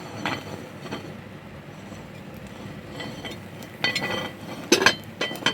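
Metal cookware clinking against a pot of rice: a light clink just after the start, then several sharp, ringing clinks in the last second and a half.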